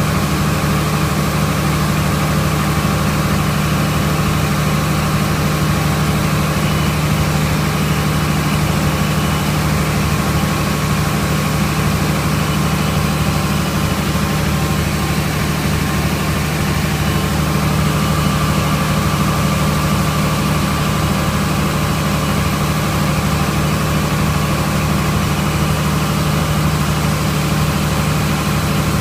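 Tractor diesel engine and combine machinery running steadily as the combine's auger unloads oats into a grain cart, a constant low drone.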